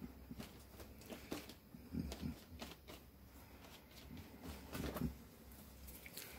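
Faint dabbing and rubbing of a paint-loaded paper towel on watercolor paper: soft, irregular scuffs and rustles.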